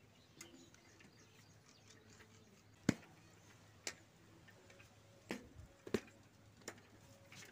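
A few scattered, faint clicks and light knocks from a bicycle tyre being pressed back onto its steel rim by hand. The sharpest click comes about three seconds in, and a low steady hum sits underneath.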